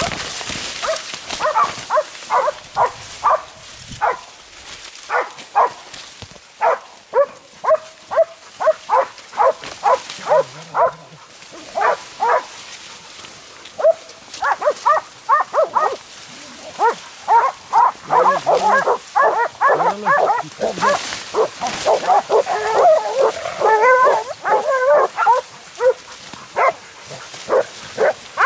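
Hunting dogs barking in quick, repeated barks, crowding together and overlapping a little past the middle, as they bay a wild boar in the corn.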